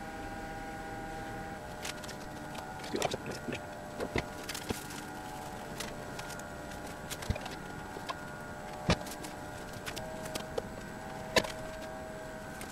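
Scattered small clicks, taps and scrapes as a chrome finisher strip is worked into a windscreen's rubber seal with a wire hand tool, over a steady background hum.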